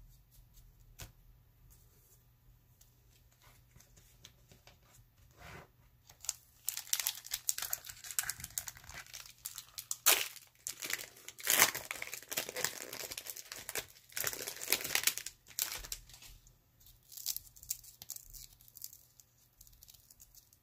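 Wrapper of a 1992 Fleer Ultra Series 2 baseball card pack being torn open and crinkled. A few faint clicks come first. About six seconds in, dense crackling starts, with two sharp rips a little before the middle, and it eases off into lighter crinkles near the end.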